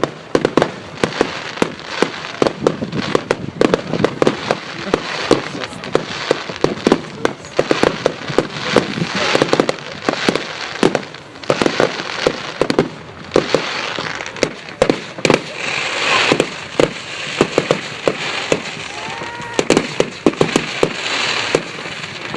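Fireworks display: a rapid, almost continuous run of bangs and pops from bursting shells, with stretches of crackling hiss about two-thirds of the way in and again near the end.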